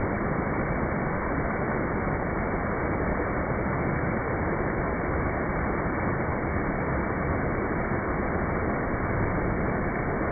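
Water rushing steadily down a stepped cascade into a pool: an even, dull rushing with no breaks.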